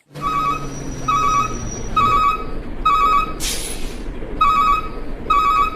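Electronic ringing trill, like a phone ringtone, repeating about once a second, with a short hiss about halfway through.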